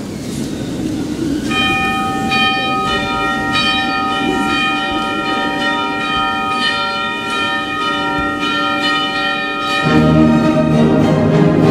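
Bells ring a slow melody of single struck notes, each one left to ring on, after a second or so of low background noise. About ten seconds in, the orchestra comes in under them with a low, sustained chord.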